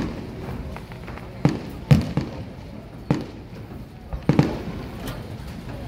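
Aerial fireworks shells bursting: a string of sharp bangs at uneven intervals, about eight in all, the loudest about two seconds in.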